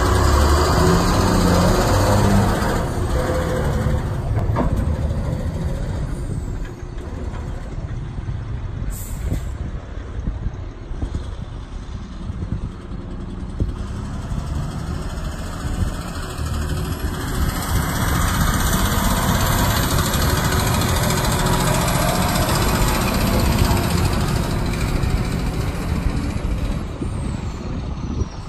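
A 2008 Volvo A25E articulated dump truck's diesel engine running under load as the truck pulls away and drives off across a field.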